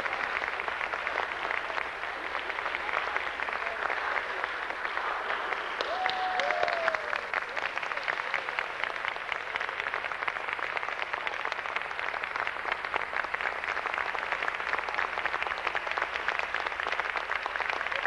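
Audience applauding, with a brief tone that rises and falls about six seconds in.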